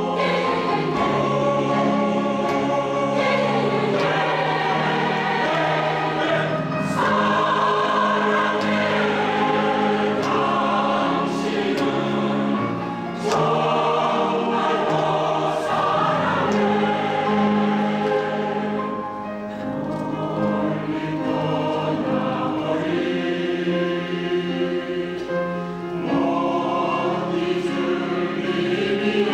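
Women's choir singing a Korean song in parts with piano accompaniment, held chords moving phrase by phrase, with short dips in level between phrases.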